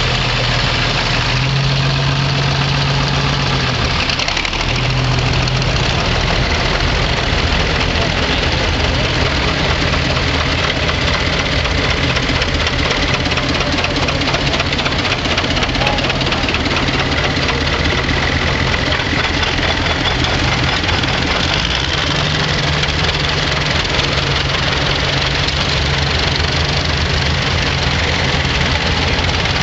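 Several old farm tractors' engines running at low revs as the tractors drive slowly past one after another, a steady overlapping engine sound with a knocking edge.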